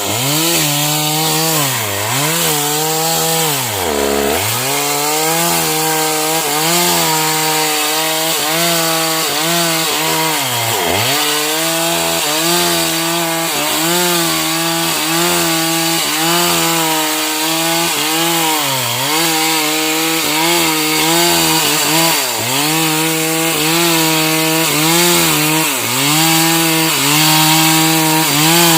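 Stihl MS 381 two-stroke chainsaw running at high speed while cutting sengon (albizia) wood. Its pitch dips sharply and recovers many times, every few seconds, as the chain bites in under load.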